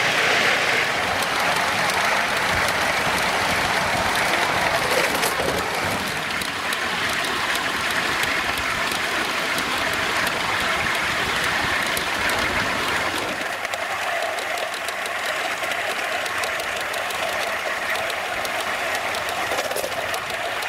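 5-inch gauge live-steam model of Leek and Manifold Valley Light Railway engine No. 2 running along a raised track: a steady rushing noise of steam and wheels on the rails, with fine clicking. The sound thins a little about 13 seconds in.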